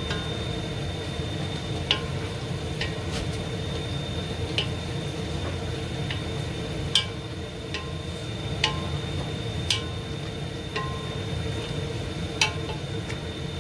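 Wooden spatula stirring meat and vegetables in a large stainless steel stockpot, knocking against the pot about ten times at irregular intervals, each knock with a brief metallic ring, over a steady low hum.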